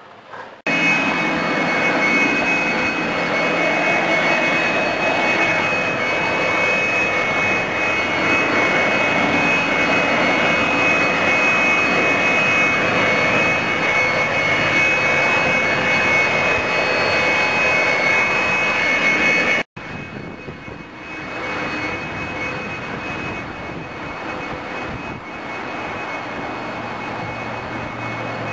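Handheld leaf blower running steadily at full power, a dense rush of air with a high fan whine, starting abruptly about half a second in. After a sudden break about twenty seconds in it carries on quieter.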